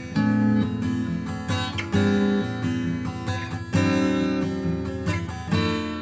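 Outro music: an acoustic guitar strumming chords, getting slightly quieter toward the end.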